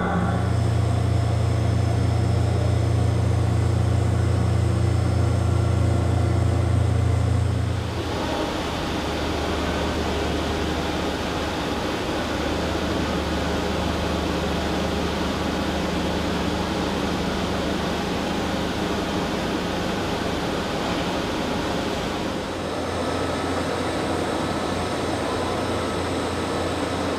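Starrag STC 800 five-axis machining center milling an aluminium impeller: steady machine noise, with a strong low hum for about the first eight seconds, then a broader, even rushing noise.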